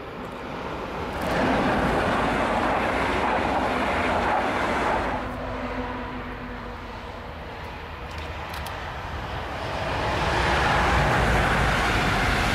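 Siemens Vectron electric locomotive hauling red double-deck coaches past at speed, with wheels rumbling on the rails. The sound swells for a few seconds, fades, then swells again as a second train draws near.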